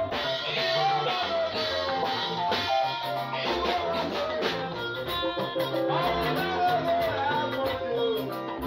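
A live band playing Benin music: a melodic lead line over keyboard, bass and a drum kit, in a steady, continuous groove.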